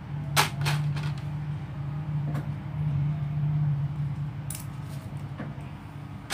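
Plastic Lego pieces clicking and rattling as they are handled and pressed together: a few scattered sharp clicks, the loudest about half a second in, over a steady low hum.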